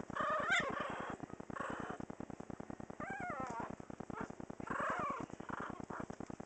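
Very young Pomeranian puppies at play, giving a fast rattling purr-like grunt under a few short squeaky, wavering cries: one about half a second in, one about three seconds in and one about five seconds in.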